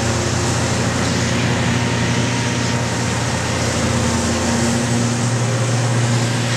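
Hitachi Zaxis 520LCH demolition excavator running under load: its diesel engine and hydraulics give a steady, deep hum as the long-reach boom is raised.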